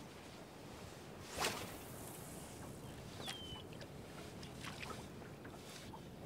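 A spinning rod swishing through the air as the lure is snapped on the retrieve. There is one sharp swish about a second and a half in, then fainter ones later, over a steady hiss of wind and water.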